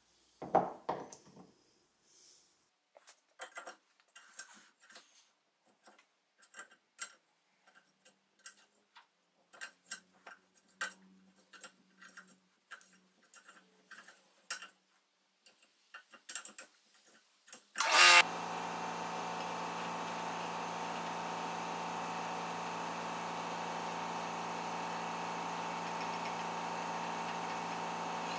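Scattered clicks and knocks of metal parts and hand tools being handled. About two-thirds of the way through, a power tool switches on with a sharp click and runs at a steady speed.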